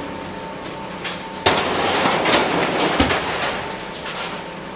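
Metal store shelving being dismantled. A sharp clang comes about one and a half seconds in, then a stretch of rattling and scraping, and another bang about three seconds in.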